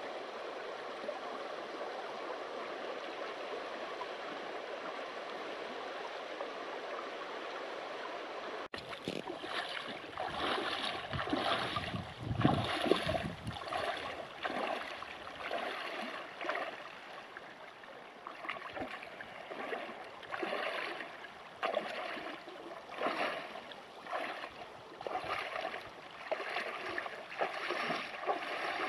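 A steady rushing noise for about the first nine seconds. Then a hiker wading across a shallow, rocky river: repeated splashing steps through the water, roughly one a second, over the sound of the flowing river.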